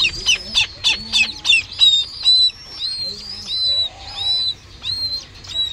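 Downy raptor chick begging while being hand-fed meat: repeated high-pitched, short arched calls, several a second. A quick run of sharp clicks comes in the first two seconds.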